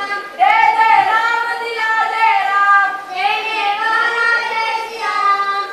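A child singing a slow melody in long held notes, in two phrases, one beginning about half a second in and the other near the three-second mark, each opening with a gliding rise.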